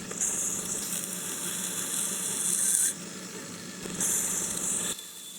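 Knife edge ground edge-trailing with light pressure on a Vevor 1x30 belt sander's 600-grit diamond belt: a hissing grind over the motor's steady hum, in one long pass that ends about three seconds in and a shorter pass about a second later. These are apexing passes.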